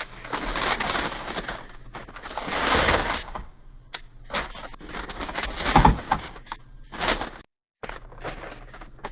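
Handling noises of packaged snacks and drinks: plastic packaging rustling and crinkling, with light knocks, in several bursts. It breaks off into a short dead silence about seven and a half seconds in, then the rustling starts again.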